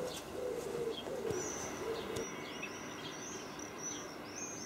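Garden birdsong at dusk: a pigeon cooing in low, level notes that stop suddenly about two seconds in, while a small songbird's high chirps and short trills repeat through the rest.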